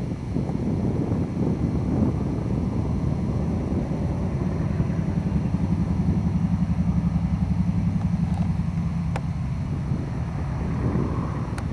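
Twin radial engines of a Lockheed Lodestar running as the plane rolls along the runway: a low drone with a quick, regular pulsing in the middle.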